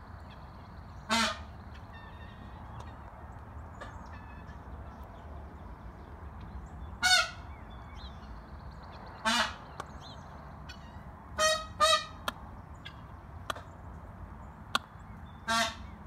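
Peafowl giving short, loud honking calls, six in all, two of them in quick succession about eleven and a half seconds in, over faint high chirping.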